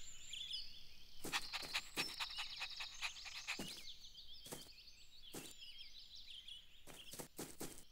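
Faint birds chirping in the background, with scattered light clicks.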